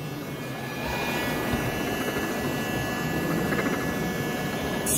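Steady background hubbub of a busy exhibition hall, with a faint, steady high-pitched hum over it.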